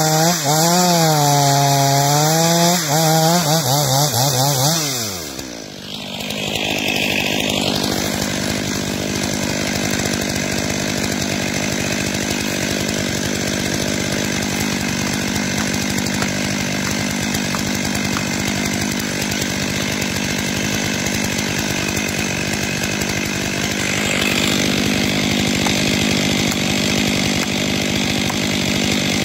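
Stihl MS500i fuel-injected two-stroke chainsaw running. For the first five seconds its pitch wavers up and down as it works; then the pitch drops away and it settles into a steady, unchanging pitch for the rest.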